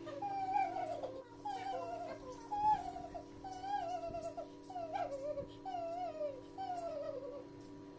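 Background music: a sliding, wavering lead melody in short falling phrases over a steady held chord.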